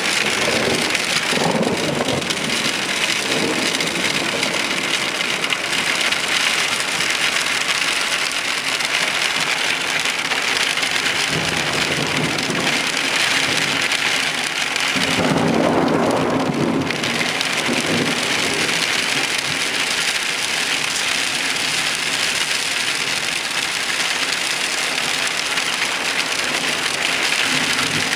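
Heavy rain falling steadily in a storm, with a low rumble swelling up about halfway through.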